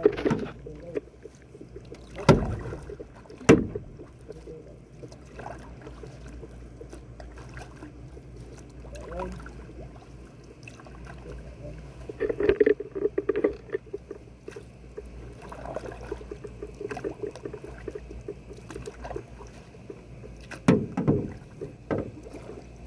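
Canoe paddling on a lake: paddles dipping and pulling through the water in patches, with two sharp knocks a little over a second apart near the start.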